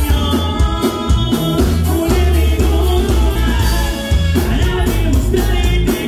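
A norteño conjunto playing with a singer: bajo quinto, bass and drums keep a steady beat under the melody.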